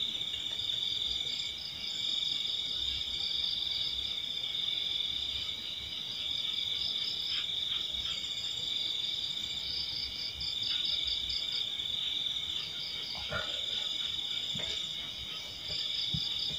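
Steady chorus of chirping insects such as crickets, in several high layers, some of them trilling in quick pulses.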